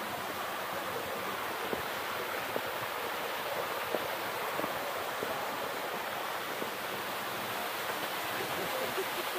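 Small garden waterfall and stream running over rocks: a steady rush of water.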